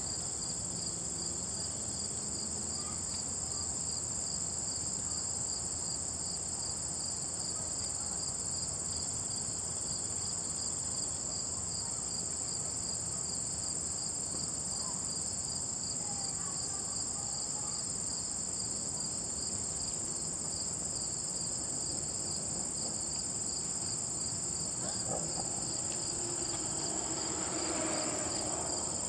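Steady chorus of singing insects such as crickets and katydids: a continuous high-pitched shrill with a pulsing trill a little lower, unbroken throughout.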